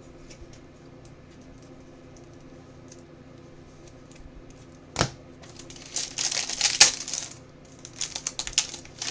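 Trading cards and their packaging being handled: a sharp tap about five seconds in, then a second and a half of crinkling and clicking, and another short bout of clicks near the end.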